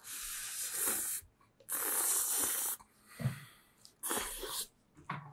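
A person slurping spicy mixed noodles (bibim-myeon) into his mouth in three long, airy sucks, the middle one the longest, picked up by a close microphone.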